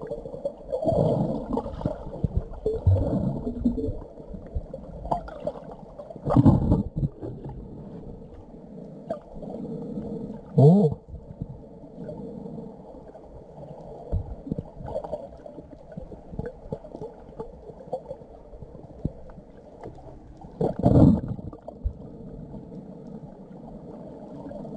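Muffled underwater sound picked up by a camera below the surface: a low, dull wash of water movement, with three louder swells about six, ten and twenty-one seconds in.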